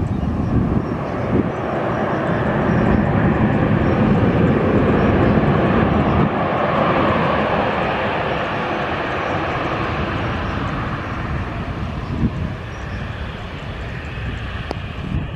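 Jet airliner's engines passing close by: a broad rushing noise that builds to a peak about five seconds in, then slowly fades.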